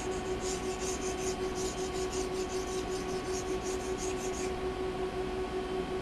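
Mora knife blade lapped on a red oak board charged with loose abrasive compound and oil: quick back-and-forth scraping strokes, about three a second, stopping about four and a half seconds in. A steady hum runs underneath.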